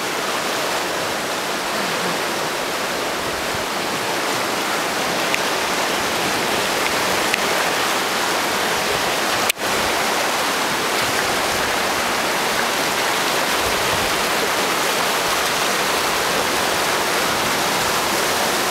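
River rapids rushing steadily, a dense unbroken roar of whitewater heard from a boat running through it; the sound drops out for an instant about halfway through.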